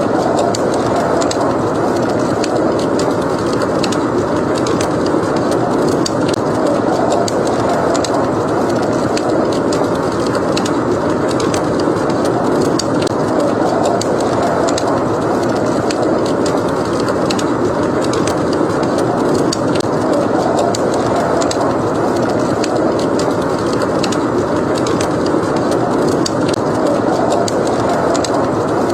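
Blizzard wind: a steady rushing that rises and falls slowly, with small sharp crackles from a wood fire in a fireplace scattered throughout.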